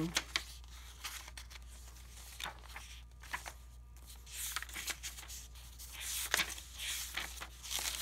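Paper pages and tucked tags of a handmade junk journal being turned and handled: soft rustling and crinkling with light taps, the louder swishes of pages turning about halfway through and again toward the end.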